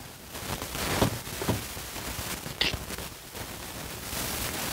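Handling noise from a phone being moved around by hand: rustling, with a couple of soft knocks about a second in and a brief high squeak a little later.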